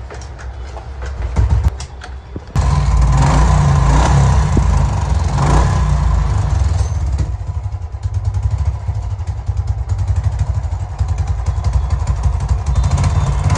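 Royal Enfield Bullet 500's single-cylinder engine being started: a couple of loud hits, then it catches about two and a half seconds in and keeps running steadily with a fast, even beat.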